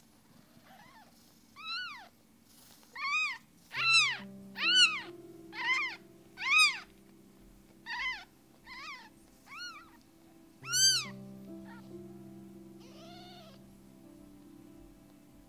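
Kittens meowing: about a dozen short, high-pitched cries, roughly one a second, the loudest around the middle, with a fainter one near the end. Soft background music of held notes comes in about four seconds in.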